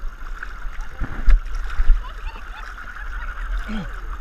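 Seawater sloshing and lapping around a camera bobbing at the surface, muffled as waves wash over it. There are heavy thumps of water against it about a second in and again just before two seconds, and a short wavering squeal near the end.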